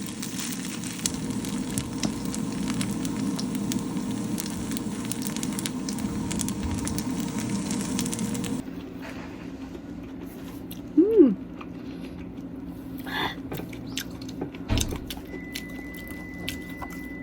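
Food sizzling and crackling in a frying pan, cutting off abruptly about halfway through. Then a quieter background with a brief squeak-like rising-and-falling sound, and a thin steady high tone near the end.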